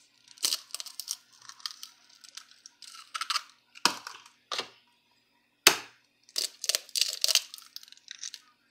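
Two eggs cracked open and broken apart over a glass mixing bowl: a few sharp knocks of shell, the loudest about six seconds in, with small crackling of shell between them.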